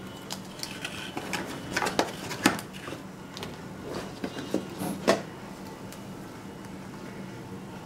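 Handling noise of a phone's accessories and cardboard retail box: a string of light clicks, taps and rustles as the plastic charger and cables are handled and set into the box, with two sharper knocks about two and a half and five seconds in. A steady faint low hum lies underneath.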